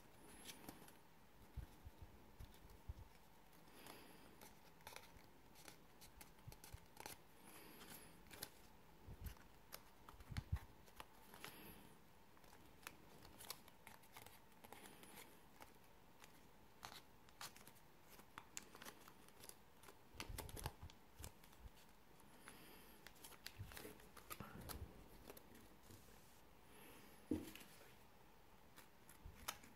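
Faint crinkling and rustling of origami paper being pinched and shaped by hand, with scattered soft clicks.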